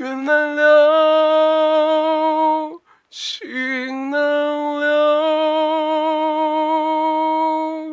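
A man singing unaccompanied, close on a condenser microphone: he holds one long steady note, takes a sharp breath about three seconds in, then holds a second long note that steps up in pitch a moment after it starts and cuts off at the end.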